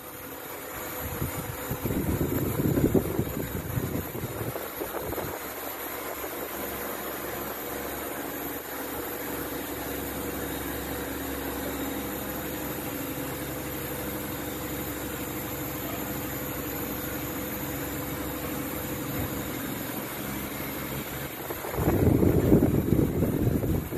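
A steady motor hum. Gusts of wind rumble on the microphone come near the start and again near the end.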